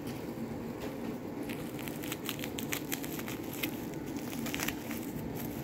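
Plastic bubble wrap crinkling and crackling as small scissors snip through it, a scatter of short clicks, most of them in the second half.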